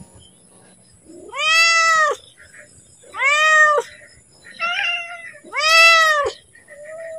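Domestic cat meowing over and over: three loud, drawn-out meows about two seconds apart, each rising then falling in pitch, with a shorter, softer call between the second and third and a faint one near the end. The cat is calling to be fed.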